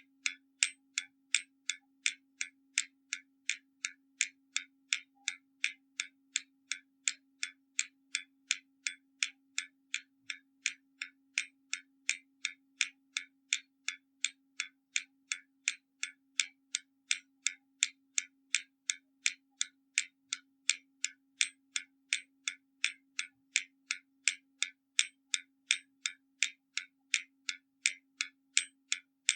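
Hermle mechanical skeleton clock ticking, its escapement giving sharp, perfectly even ticks at about two and a half a second. A very faint steady hum lies underneath.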